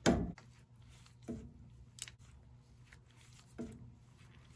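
Hand-pumped lever grease gun forcing grease through the grease fitting into a pitman arm ball joint. There is a sharp click at the start, then a few softer clicks and squishes about every second or so as the lever is worked.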